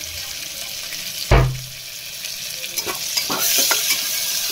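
Onion, tomato and curry leaves frying in oil in an aluminium pressure cooker, sizzling steadily while a steel spoon stirs and scrapes, with a few small clicks. One heavy thump about a second in is the loudest sound, and the sizzle swells near the end.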